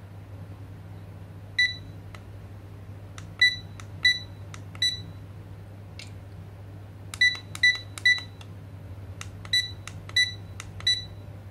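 Wooden cube LED alarm clock giving short high beeps as its buttons are pressed, about ten in irregular groups, with soft button clicks between them. Each beep confirms a press that steps the display through its brightness levels.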